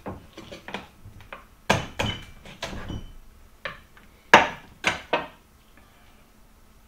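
Large kitchen knife chopping through a rabbit's joints onto a wooden cutting board: a run of sharp knocks, loudest at about two seconds in and again at four to five seconds.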